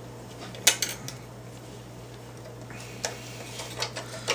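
Sharp little clicks and taps of small RC-car suspension parts being handled and fitted onto a carbon-fibre chassis, a few scattered clicks with the loudest about two-thirds of a second in.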